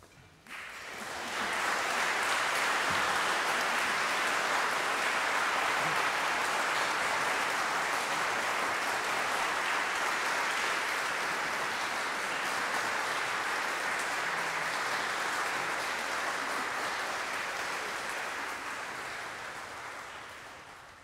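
Audience applauding. The clapping swells within the first couple of seconds, holds steady, then dies away over the last few seconds.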